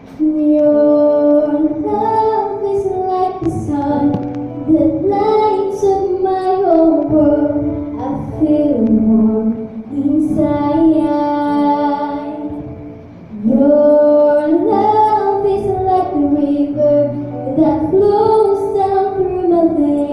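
A young girl singing a slow ballad into a handheld microphone, amplified through a PA loudspeaker, over a quieter karaoke backing track. Her voice comes in right at the start with long held notes, with a brief pause between lines partway through.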